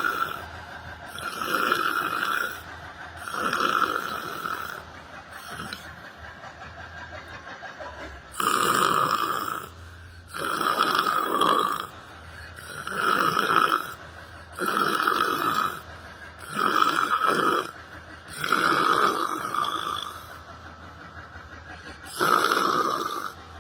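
A person snoring in a steady rhythm, each snore lasting about a second with roughly two seconds between them, and a pause of a few seconds about a quarter of the way through.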